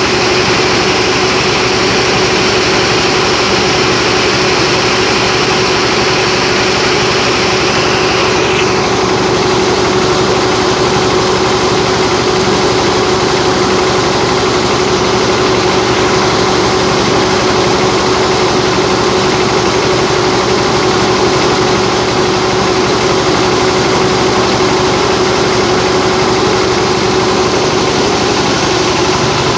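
Rice milling machine driven by a 24 hp Dongfeng single-cylinder diesel engine, running steadily as it hulls paddy into rice. A higher hiss over the engine and mill noise stops about a third of the way through.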